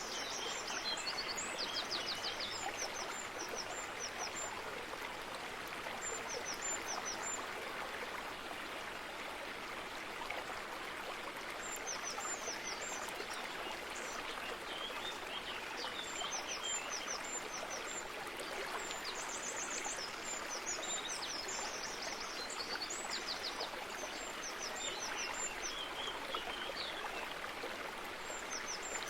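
Steady rush of running water, like a stream. Over it, small songbirds chirp in short runs of high, repeated notes near the start, through the middle, and again near the end.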